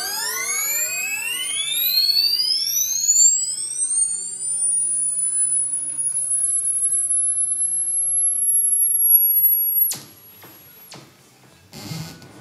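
Homemade electronic synthesizer played through the performers' skin contact: a cluster of tones glides steadily upward in pitch into a single high, steady whistle, which cuts off suddenly about ten seconds in. Quieter scattered noise follows, with a brief burst near the end.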